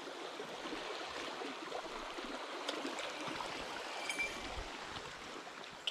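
Shallow stream running over a gravel bed, a steady rush of water, with a few faint clicks.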